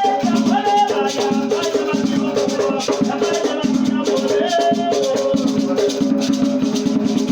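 Batuque ceremonial music: drums and a shaken rattle keep a steady, even rhythm, with voices singing over them.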